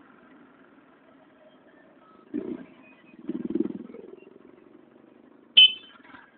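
A vehicle engine running low and steady, swelling louder twice in the middle, with a short, sharp high-pitched sound near the end.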